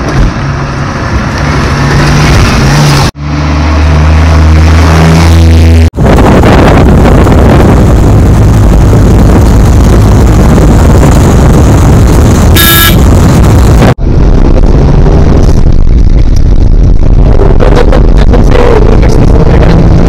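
Loud engine and road noise heard from inside a moving vehicle's cabin on a dirt road, broken by a few abrupt cuts. A short high beep sounds about two-thirds of the way through, and a pitch rises slowly near the end.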